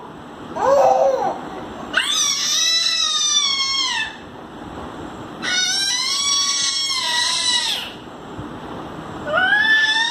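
A toddler's high-pitched squealing vocalisations: one short squeal, then three long wavering squeals of about two seconds each, the last beginning near the end.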